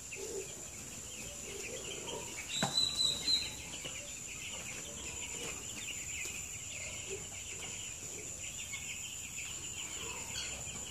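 A flock of two-week-old broiler chicks peeping continuously, many overlapping high chirps, over a steady high-pitched whine. A brief louder sound stands out about two and a half seconds in.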